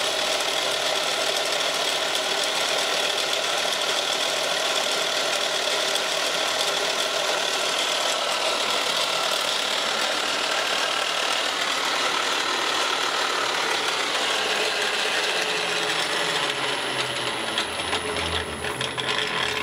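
Mill-drill running an end mill in a Jacob's chuck, cutting a polypropylene block with a steady, dense whirr. Near the end the spindle winds down with a falling pitch.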